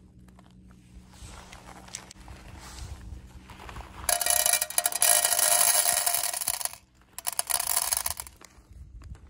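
Dried popcorn kernels poured from the bag into an empty aluminium mess tin: a dense rattle of many hard kernels hitting the thin metal. It starts about four seconds in and lasts nearly three seconds, followed by a second, shorter pour.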